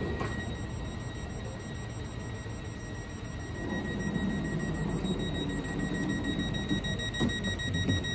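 Door-closing warning tone of a Westbahn Stadler KISS double-deck train's sliding exterior door, a steady high beep sounding while the door closes. Near the end a few knocks are heard as the door slides shut and locks.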